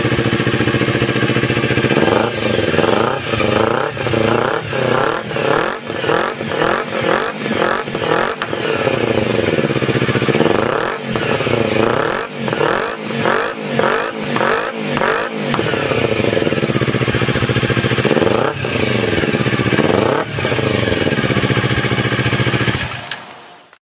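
Kawasaki Ninja 250 engine running through a Roncar Coyote Five aftermarket sport exhaust: idling, then a rapid series of short throttle blips, followed later by a few single revs, before the sound cuts off near the end.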